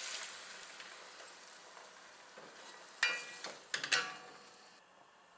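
Water poured onto hot fried vegetables in a pot, hissing and sizzling and dying away over the first couple of seconds. Then a spoon stirring, knocking against the enamelled pot a few times, about three and four seconds in.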